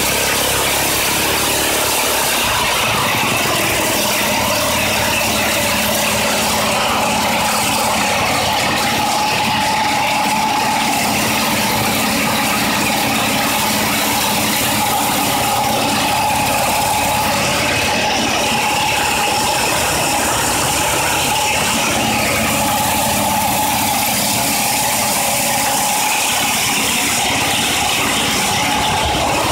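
Small engine running steadily at high speed, spinning a raised wheel with nothing in contact with the ground.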